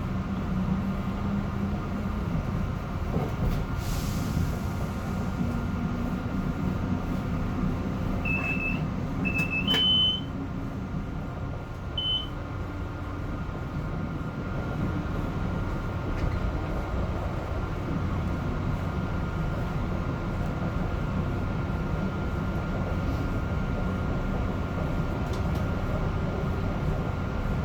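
Metro-North M3 electric multiple-unit train running along the track, heard from inside: a steady low rumble of wheels and running gear with a thin steady whine over it. A few short high beeps sound about a third of the way through.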